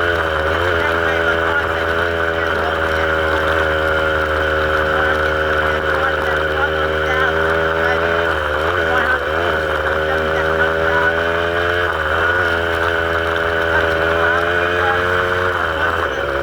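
A vehicle engine running steadily, its pitch dipping briefly and coming back up several times as the throttle eases and picks up again.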